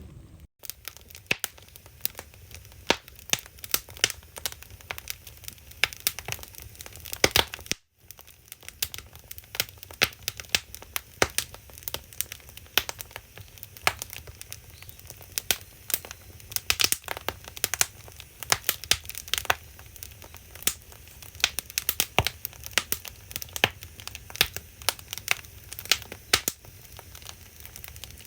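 Firewood burning in a traditional Korean agungi fire hole, crackling with dense, irregular sharp snaps and pops over a low rumble.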